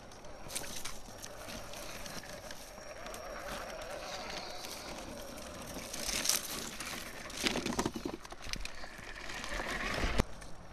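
ZP1004 RC rock crawler's small electric motor and gears whining as it crawls over rock, with its tyres scrabbling. A few scrapes and knocks come in the second half, the sharpest just after ten seconds.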